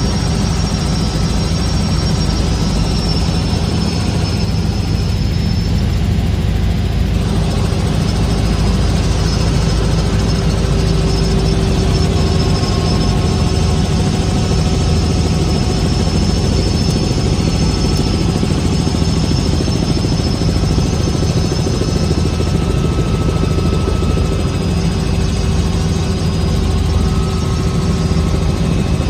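Light helicopter in flight, heard from inside the cabin: a steady loud drone of engine and rotor, with a few steady whining tones above it.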